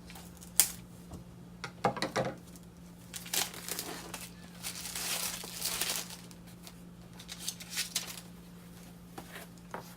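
Plastic packaging crinkling and rustling as small household goods are handled, with a few sharp taps and clicks and a longer stretch of crackling in the middle.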